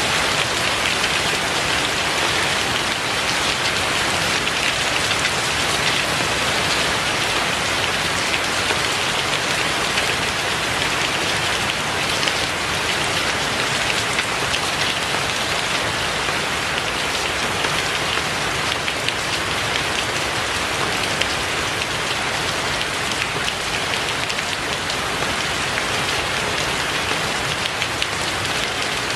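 Rain falling steadily: a dense, even hiss flecked with the taps of individual drops, unchanging throughout.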